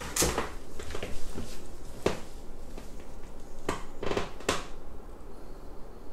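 A few brief rustles and soft handling sounds as hair is combed and sectioned with a comb and hair clip.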